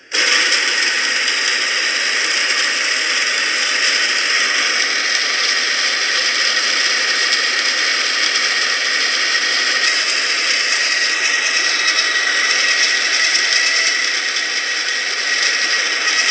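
Electric burr coffee grinder grinding a hopper of whole coffee beans: a steady whirring grind with a high whine through it, switched on suddenly at the start.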